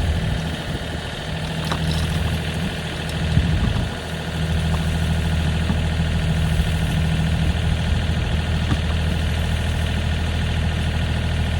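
Loader's engine running steadily at a low idle-like speed, with a brief dip in loudness about four seconds in.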